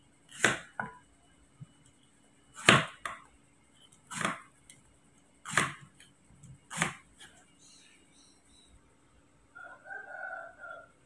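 A kitchen knife slices a cucumber on a wooden chopping board, making several sharp chops about a second apart, each as the blade hits the board. Near the end a rooster crows once, for about a second.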